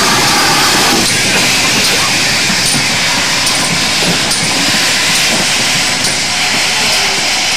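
GWR 2884-class 2-8-0 steam locomotive No. 3822 moving slowly past tender-first, giving off a loud, steady hiss of steam.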